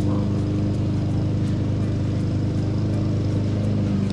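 Steady low motor hum holding one unchanging pitch.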